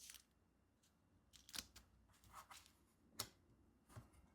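Near silence with faint paper handling: a few soft rustles and light clicks, the sharpest about a second and a half in and again near three seconds.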